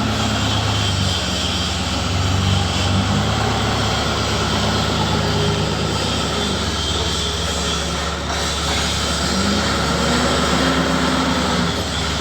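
An engine running steadily, its low hum shifting slightly in pitch now and then.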